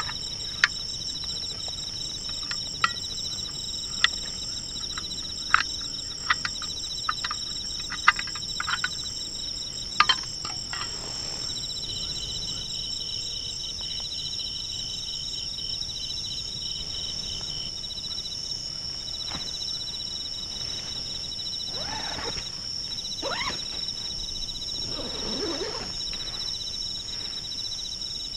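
A steady chorus of insects trilling with high, pulsing tones. Over it come a series of sharp clicks or knocks in roughly the first ten seconds, and a few soft swishing or rustling sounds later on.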